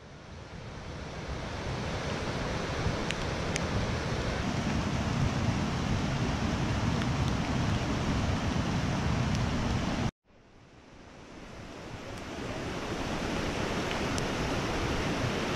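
Steady rush of a swollen, muddy stream running fast after rain, with wind buffeting the microphone. The sound cuts out about ten seconds in and fades back up over a couple of seconds.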